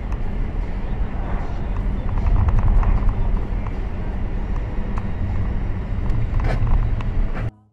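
A car driving on a winter road, heard from inside the cabin: a steady low rumble of engine and road noise, with a few light clicks and a short sharper sound about six and a half seconds in. It cuts off suddenly near the end.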